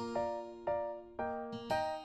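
Background music: notes struck about twice a second, each ringing and dying away.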